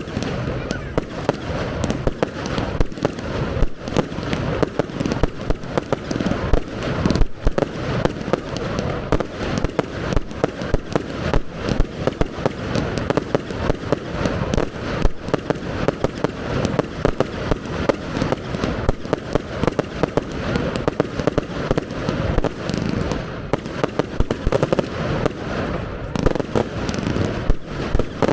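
Professional fireworks display going off in a continuous barrage: many rapid, closely spaced bangs a second, with no pause.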